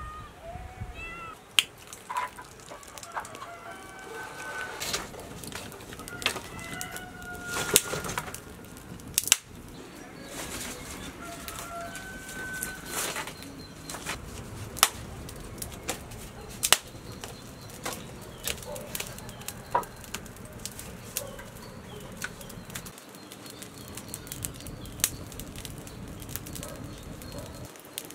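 Farmyard poultry calling in short notes, with scattered sharp clicks, knocks and wing flaps. A puppy whimpers briefly at the very start.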